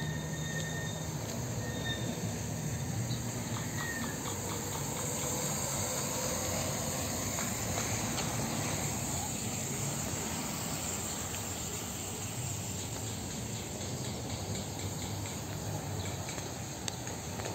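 Steady street traffic noise, a low rumble under a constant high-pitched buzz, with a few faint short whistles in the first few seconds.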